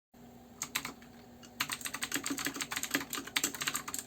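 Typing on an 87-key mechanical keyboard with clicky blue switches: a few key clicks about half a second in, then a fast run of clattering keystrokes from about a second and a half in.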